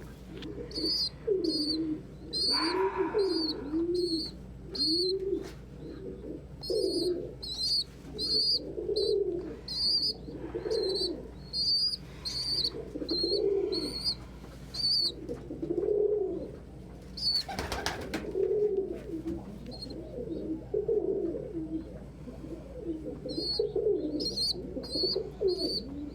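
Domestic pigeons cooing over and over in low, rolling arcs, with a steady run of short, high-pitched peeps about twice a second alongside. A brief rustling clatter comes about two-thirds of the way through.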